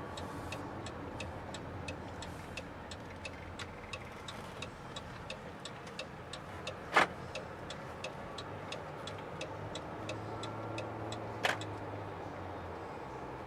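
A car's turn-signal indicator ticking steadily, about two to three clicks a second, over the low hum of the car. Two louder, sharper clicks come about halfway through and again near the end.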